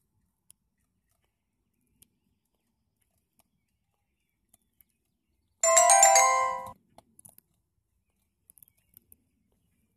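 A short electronic ringtone melody of bright stepped tones, lasting about a second just past halfway, over otherwise near silence with a few faint clicks.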